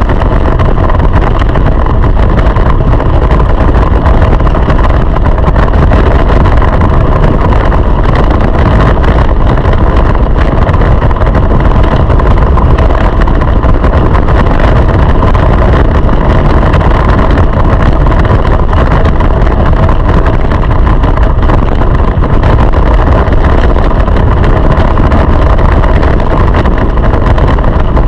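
Go-kart engine running loud and steady at racing speed, heard from an onboard camera on the kart.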